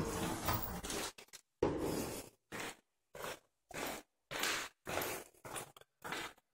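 Footsteps scuffing on a ceramic tile floor: a string of short, scratchy scrapes about two a second, in a walking rhythm.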